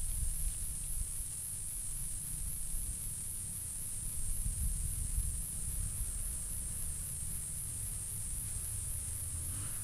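Insects chirping steadily in a high, even pulse at about three beats a second, over a low rumble.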